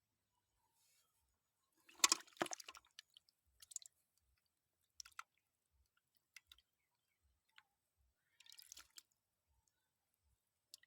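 Brief wet splashing and squelching noises: a cluster of them about two seconds in, then a few single short splashes spread through the rest.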